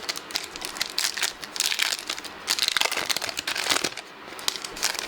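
Foil Pokémon booster pack wrapper crinkling as it is handled and torn open, in a series of irregular crackly rustles.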